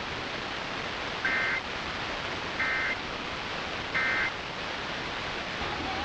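Emergency Alert System end-of-message signal: three short bursts of SAME digital data chirps, each a fraction of a second long and about 1.3 s apart, over a steady radio hiss. The bursts close the alert.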